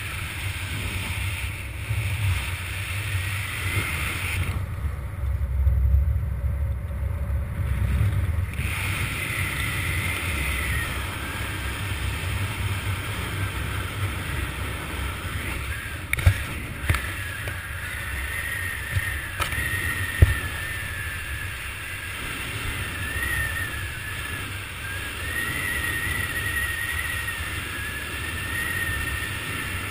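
Wind rushing over the helmet camera's microphone during descent under an open parachute canopy: a steady low rumble, with a thin wavering whistle over the second half and a few sharp knocks a little past the middle.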